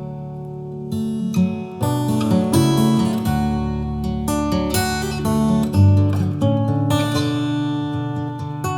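Background music: acoustic guitar picking and strumming, with a new phrase entering about a second in.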